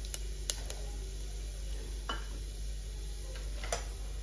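Cumin seeds sizzling faintly in hot oil in an aluminium pressure cooker, with a few sharp crackles and pops, several in the first second and one a little before the end.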